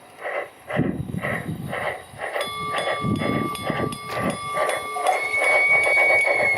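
Steam locomotive puffing in an even rhythm, about three exhaust beats a second. From about two seconds in, steady high whistle-like tones sound over the beats.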